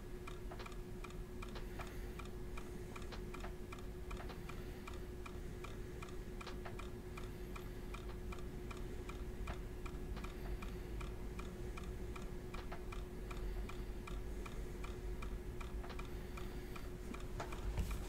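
Faint, steady, evenly spaced ticking with a low steady hum underneath.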